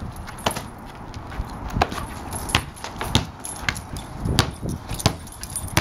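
A small basketball bouncing on concrete, a string of irregular thumps roughly every half second to a second as it is dribbled and batted about by a man and a puppy.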